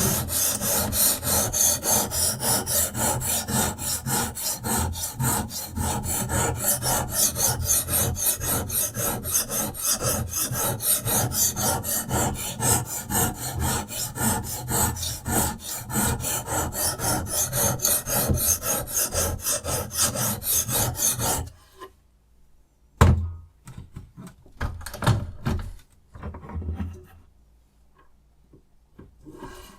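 Sharpening stone on a Rehoo Pro RH006 guided-angle knife sharpener scraping back and forth along a steel knife blade in quick, even strokes, about three a second. The strokes stop about two-thirds of the way in, followed by a sharp knock and a few soft handling sounds.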